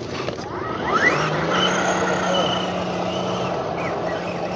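Electric motor and gearbox of a radio-controlled off-road car whining, with a quick rising whine about a second in as it spins up, then running at a steady pitch.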